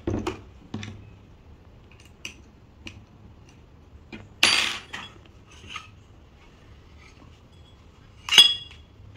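Metal clicks and clinks of a barrel being worked loose and drawn out of a Daystate Delta Wolf air rifle. A louder, longer clatter comes about four and a half seconds in, and a sharp ringing metal clink near the end.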